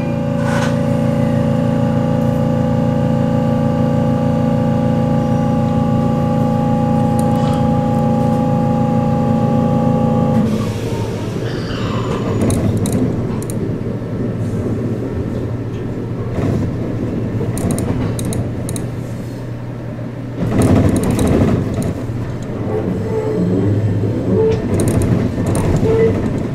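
ET127 series electric train running slowly, heard from inside the car: a steady electric whine from its traction equipment for about the first ten seconds, which then cuts off. After that the car rolls on with wheel rumble and irregular clicks and knocks over rail joints and points, loudest about twenty seconds in.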